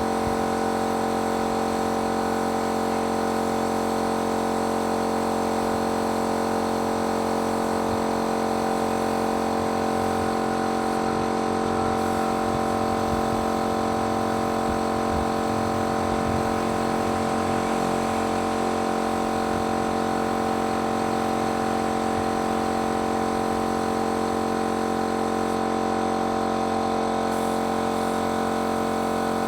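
Motor of a paint-spraying machine running steadily, a constant even-pitched hum with hiss above it.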